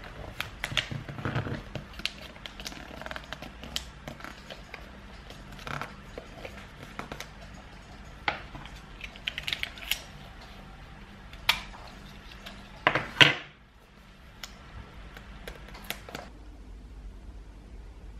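Gift wrapping: wrapping paper rustling, crinkling and being folded, with small clicks and snaps of sticky tape pulled from a roll and pressed down. The loudest sound is a short rasp about thirteen seconds in.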